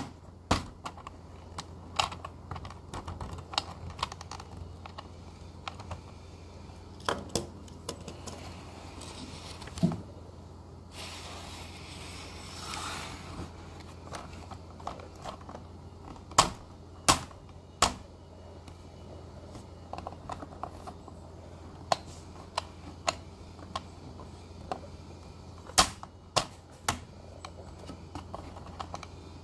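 Scattered sharp clicks and clacks of a plastic toy car-wash playset and die-cast toy cars being handled. A few seconds of hissing noise come about eleven seconds in.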